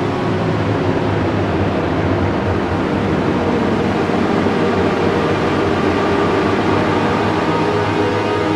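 Dark background music of held low chords under a loud, rushing, noise-like wash that swells through the middle.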